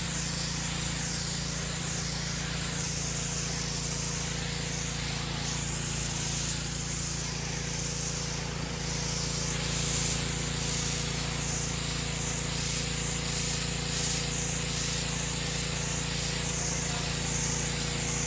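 Craftsman pressure washer running steadily, its motor humming under the continuous hiss of the high-pressure spray on the driveway.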